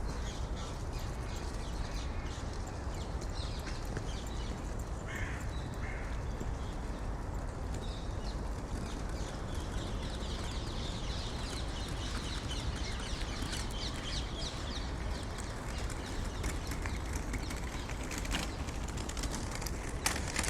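City park ambience: a steady low background rumble with birds calling, including a run of quick high chirps in the middle.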